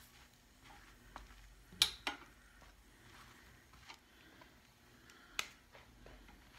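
A few sharp clicks of cooking utensils (tongs and a spatula) against the griddle plate of an electric indoor grill as flatbreads are turned. The loudest click comes just under two seconds in, over a quiet background.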